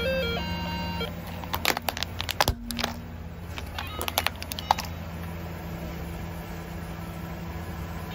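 Electronic toy guitar playing a short beeping tune for about a second, then a run of sharp cracks and snaps as a car tyre rolls over the plastic toy and breaks pieces off it. The car's engine idles steadily underneath.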